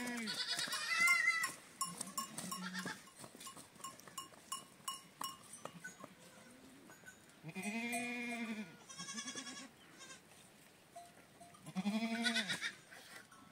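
Herd animals bleating: a handful of separate bleats, the longest about two-thirds of the way through. Light clicks and clinks come in between.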